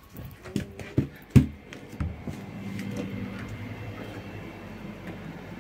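A few knocks and bumps as the phone is carried and handled, the loudest about a second and a half in, followed by a steady low hum that continues to the end.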